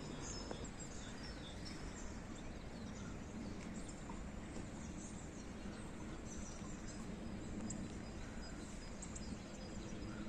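Quiet open-air ambience: a steady low hum and hiss of the surroundings, with a few faint, short high bird chirps in the second half.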